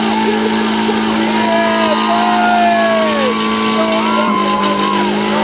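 A car's engine held at steady high revs while the spinning tyres squeal in wavering tones during a smoky burnout. About four seconds in, the engine note drops a step in pitch.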